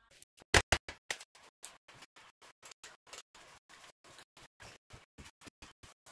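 A rapid series of short clicks, about four to five a second, the loudest ones in the first second and a half.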